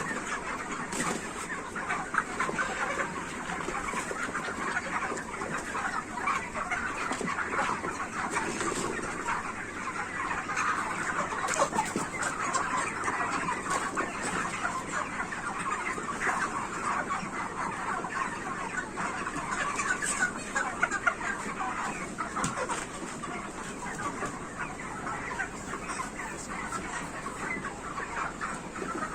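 A large flock of broiler chickens, about 45 days old, clucking and chirping together in a dense, steady chatter with no single bird standing out.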